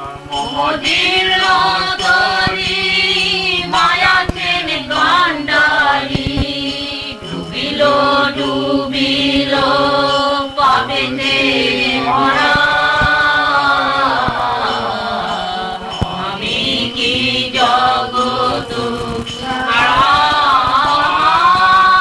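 Devotional kirtan: a melodic sung chant with music behind it.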